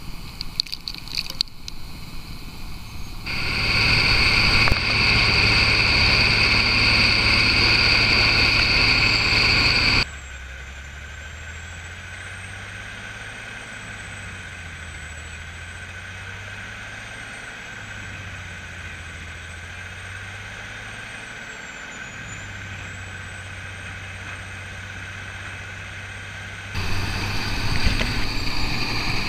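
Bandit Beast 3680 horizontal grinder running under load while grinding firewood logs into chips, its engine and grinding drum making a loud steady drone with a high whine. The sound changes abruptly a few seconds in and again after about ten seconds: first loud with a strong whine, then a quieter low drone. It turns loud again near the end.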